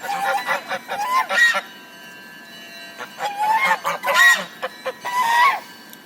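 Domestic geese honking: several birds calling together in bursts of loud, repeated honks, in three clusters with short lulls between.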